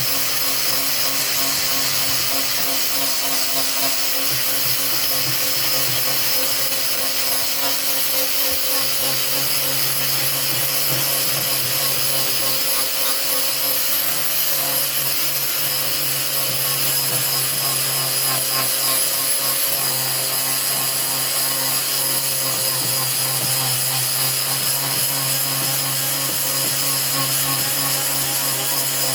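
Makita angle grinder running steadily under load as it sands old paint off solid wooden exterior boards: a constant motor whine under an even rasping hiss.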